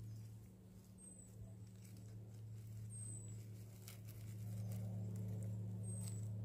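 Faint rustling and light pattering as a gloved hand gathers chanterelle mushrooms from dry grass and leaf litter, over a steady low hum.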